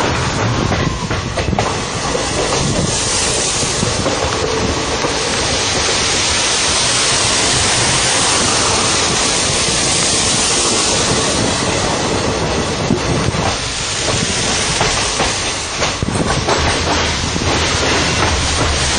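Train running on the rails, its wheels clattering with a steady rushing hiss that grows stronger for several seconds in the middle.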